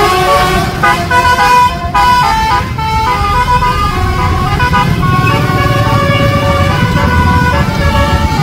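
Bus's multi-tone 'telolet' air horn playing a melody of changing notes, quick at first and then longer held notes, over the low rumble of the bus's engine.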